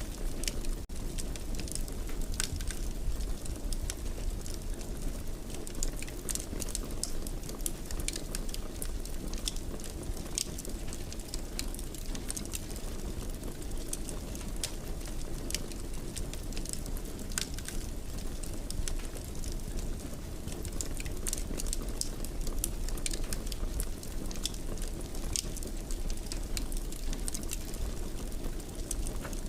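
Wood fire crackling in a fireplace: a steady low rumble of flames with frequent small sharp pops and snaps.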